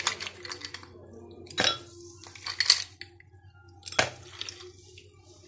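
Ice cubes dropped one by one into a glass blender jar on mint leaves, clinking sharply four or five times about a second apart.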